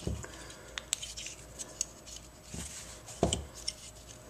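Leatherman Wave multi-tools being handled: scattered sharp metal clicks and a few soft knocks.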